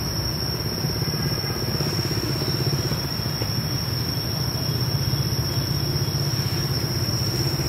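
Steady low rumble of a running engine, even and unbroken, with a constant thin high-pitched whine above it.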